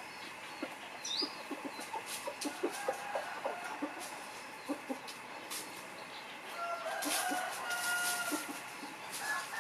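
Domestic roosters clucking in short, scattered calls. A drawn-out crow comes from a rooster from about seven seconds in, lasting nearly two seconds.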